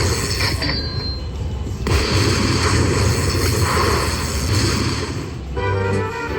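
Electronic sound effects from a Lightning Link slot machine: a loud, noisy rush over a low rumble, which stops about five and a half seconds in, where a tinkling jingle of steady notes begins.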